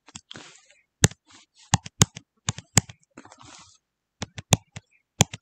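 About a dozen sharp, irregular clicks and taps of computer keys, some in quick pairs, with faint rustling between them.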